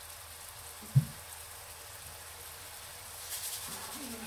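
A single dull thump about a second in, then, near the end, a brief rattle of seasoning being shaken from a plastic shaker over a frying pan.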